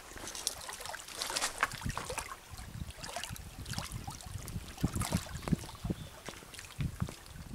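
Small waves lapping and slapping against a kayak's hull and the shore rocks, with irregular splashes, low thuds and trickling water.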